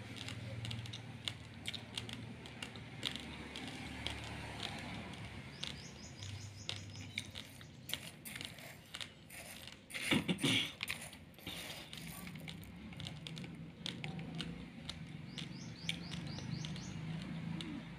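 A steel spoon stirring and scooping dry long-grain raw rice in a plastic bag: the grains rattle and trickle in rapid fine clicks against the spoon and bag, with a louder rustling scoop about ten seconds in.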